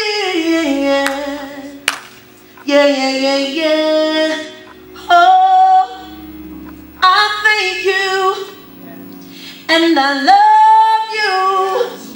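A woman singing solo into a handheld microphone, in about five phrases of long held notes that bend between pitches, with short pauses between the phrases.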